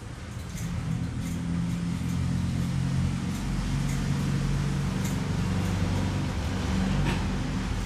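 Steady low mechanical hum of a running motor or engine, with a few faint light clicks of a metal spoon scooping flour in a bowl.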